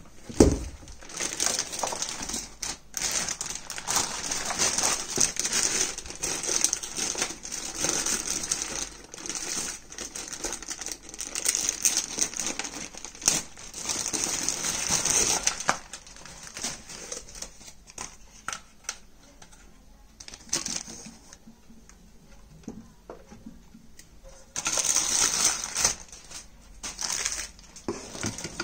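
Clear plastic bags crinkling and rustling as stainless steel mixer grinder jars are unwrapped and handled, with a few sharp clicks and knocks. The rustling dies down for several seconds past the middle and picks up again near the end.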